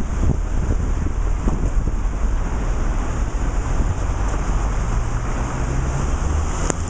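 Wind buffeting the microphone: a steady low rumble with a hiss over it, and a faint click near the end.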